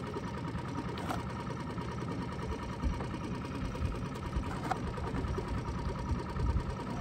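A small engine idling steadily, with a faint click now and then.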